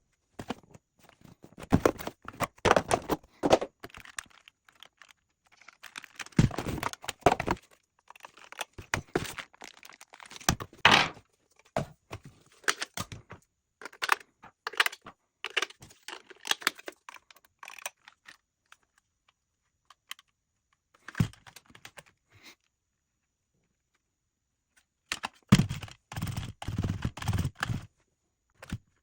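Box and packaging being handled and opened: irregular knocks, clicks and rustling in bursts, with a pause of several seconds about two thirds of the way through.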